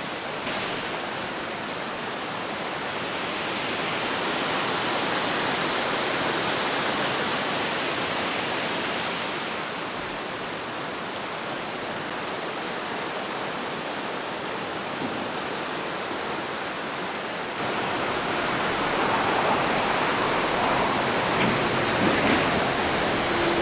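Hurricane Falls waterfall rushing: a steady roar of falling water that swells and eases, changing abruptly about three-quarters of the way through.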